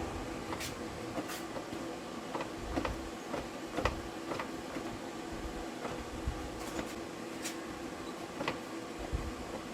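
Scattered metallic clicks and taps, irregular and a few each second at most, of hands and tools working at a driveshaft U-joint's bearing cup, over a steady background hum.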